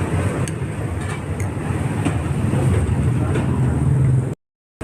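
Steady low rumble of outdoor street noise, like traffic, with a few faint clicks. It cuts off suddenly to silence near the end.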